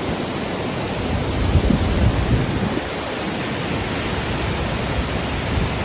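Waterfall crashing into its pool: a loud, steady rush of falling water, with a few low rumbles about two seconds in.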